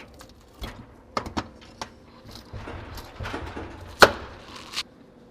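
Clicks and knocks of a vending machine tray rail being handled, unhooked and hooked back into the cabinet, with scraping in between and one louder knock about four seconds in.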